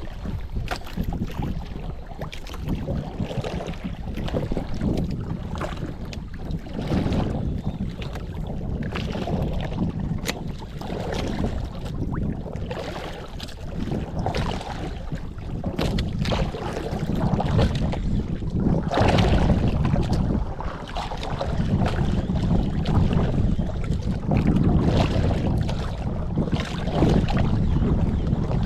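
Wind buffeting the microphone over water sloshing against a small boat's hull, rising and falling in gusts, with a few faint clicks.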